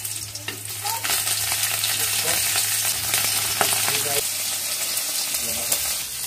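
Food frying in hot oil in a pan: a steady sizzle that grows louder about a second in, with a few light clicks of a utensil stirring.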